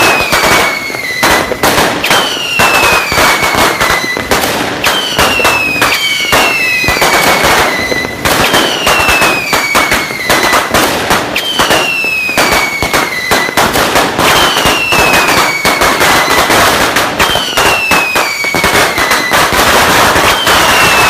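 A string of firecrackers going off in dense, rapid crackling pops. A falling whistle comes back about every three seconds.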